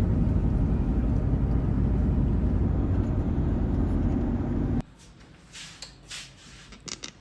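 Steady low rumble of a moving vehicle heard from inside. It cuts off suddenly about five seconds in, leaving a quiet room with a few faint rustles and clicks.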